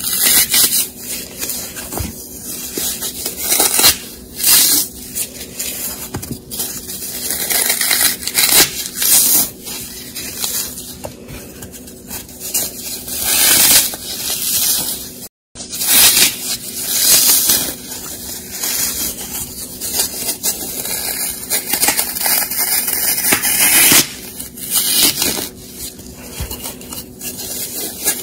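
Brown dry floral foam (Sahara type) being crushed and squeezed between gloved fingers: dense crunching and crackling that comes in repeated bursts as the block gives way. The sound drops out for a moment about halfway through.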